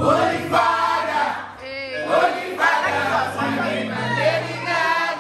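Music: a song with voices singing over a bass line.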